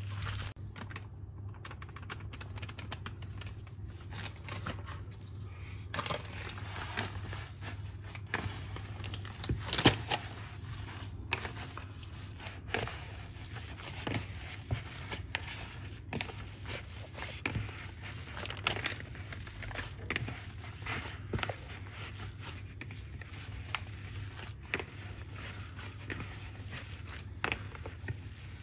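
Rubber-gloved hands kneading raw beef mince in a plastic bowl: irregular wet squelches, squishes and crackles with occasional knocks against the bowl, the loudest about ten seconds in. A low steady hum runs underneath.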